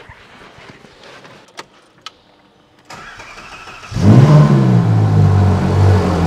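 Ferrari 458 Speciale's 4.5-litre flat-plane V8 being started, heard from inside the cabin. A few light clicks and a low whir come first, then the engine fires about four seconds in with a loud flare of revs and settles into a steady idle.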